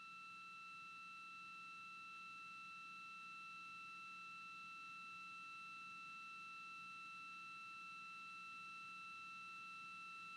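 Faint, steady electronic tone with two higher overtones over a faint low hum, unchanging throughout.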